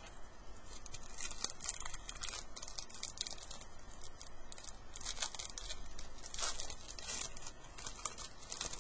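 Trading-card pack being handled: a wrapper crinkling and tearing, and cards sliding and flicking against each other, in an irregular run of quick dry rustles and scratches.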